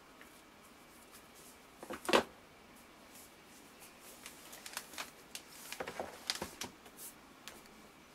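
A MacBook Air being handled and lifted out of its box tray: one sharp knock about two seconds in, then scattered soft scrapes and light taps.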